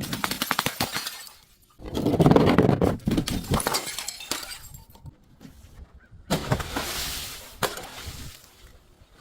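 Glass being crushed and breaking, crunching and crackling in three bursts: one fading out over the first second or so, a longer crunch from about two seconds in, and another about six seconds in.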